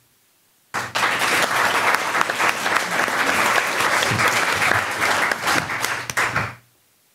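Audience applauding, starting abruptly about a second in and dying away near the end.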